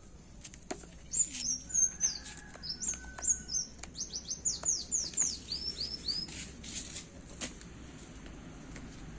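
Orange-headed thrush (anis kembang) singing: a quick run of high whistled phrases, including a string of fast downward-sweeping notes about four to five seconds in, with a few sharp clicks among them. The song stops about six seconds in.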